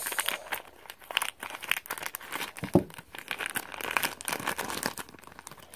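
Thin clear plastic blind-bag wrapper crinkling irregularly as it is cut open and handled to get a small toy out.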